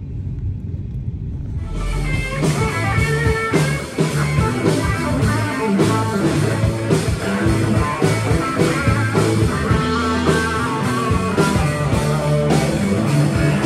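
Background rock music with guitar and a steady beat, cutting in about two seconds in over a low rumble.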